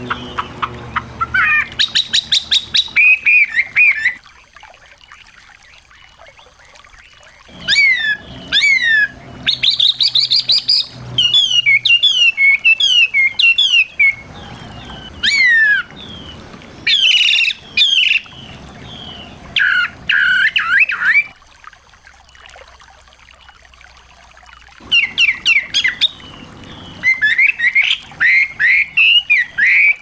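Small songbirds singing in bursts of quick whistled sweeps, chirps and fast trills, with pauses of a few seconds between phrases.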